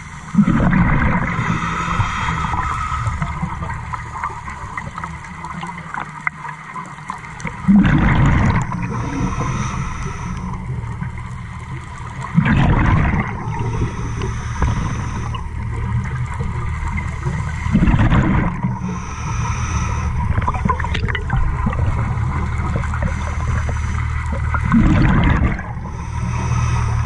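Scuba diver breathing through a regulator underwater: exhaled bubbles gurgle out in five bursts, every five to seven seconds.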